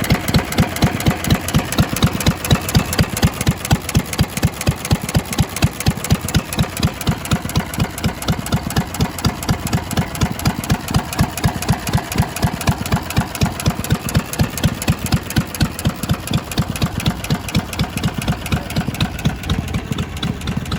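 Old engine running steadily at slow speed, a regular beat of about four to five pulses a second that keeps an even pace throughout.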